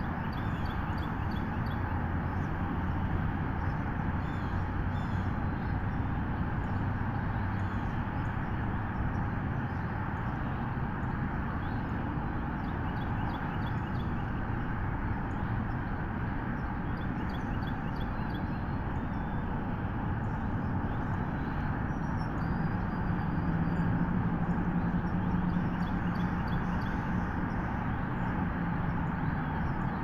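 Steady outdoor hiss on a tree-top nest camera's microphone, with a low droning hum underneath that grows louder and higher about two-thirds of the way through, and faint high chirps scattered here and there.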